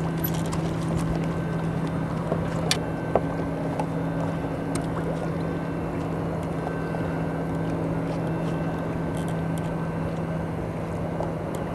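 Steady hum of a motor running aboard a bass boat, holding one even low pitch. A couple of sharp clicks come about three seconds in.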